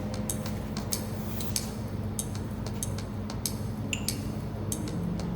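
Light metallic clicks and clinks at irregular intervals over a steady low hum, typical of tools and small metal parts being handled during dashboard removal.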